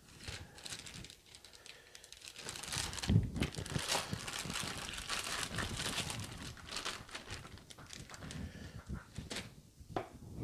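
Plastic zip-top bag crinkling and rustling as it is handled and tipped out, marinated pork ribs sliding from it into a glass bowl; the crinkling is busiest from about three seconds in until near the end.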